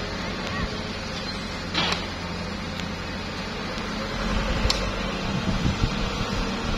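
Diesel engines of a Mitsubishi Canter dump truck and a Hitachi excavator running steadily, the truck driving over the dirt, with its rumble getting louder from about two-thirds of the way in. A short hiss comes about two seconds in.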